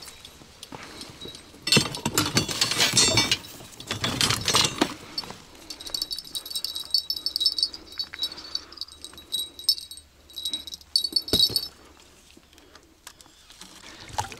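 Light metallic jingling that comes and goes, with loud bursts of rustling noise about two seconds in, again around four seconds, and a short one near eleven seconds; quieter near the end.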